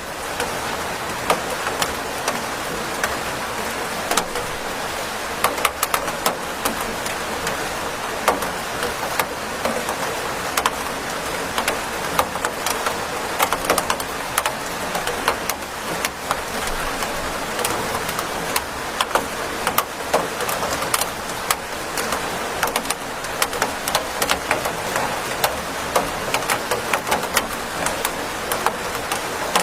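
Steady rain: a constant hiss with many separate drops landing close by, heard as frequent sharp taps throughout.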